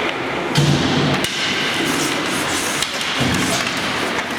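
Thuds and sharp taps during an ice hockey game, with two sharp knocks in the first second and a few duller thumps after.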